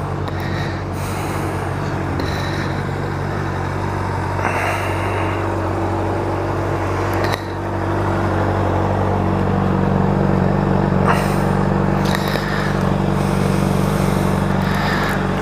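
Honda CBR600RR sportbike's inline-four engine running at a steady pace while riding, with wind noise over the microphone. The engine gets louder about halfway through.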